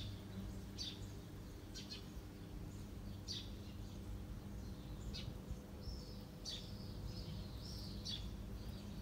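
Small birds chirping: short, high, downward-sweeping chirps about once a second, with a longer wavering call between six and eight seconds in, over a steady low background hum.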